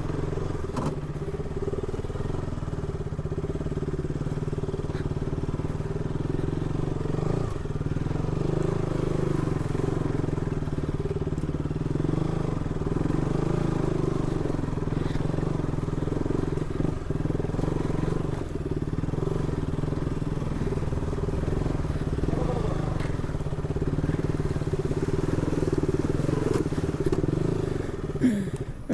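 Motorcycle engine running at steady, even revs while being ridden.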